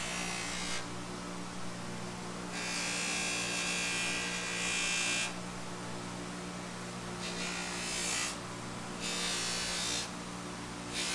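Bench buffer motor running with a steady hum while a wooden handle is pressed against the spinning buffing wheel in several stretches of rubbing hiss, each one to three seconds long, polishing the handle's finish.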